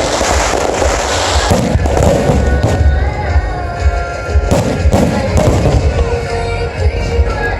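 Aerial fireworks bursting: a dense run of crackling and booms at first, then separate booms every half second or so. Background music with held notes comes in about halfway through.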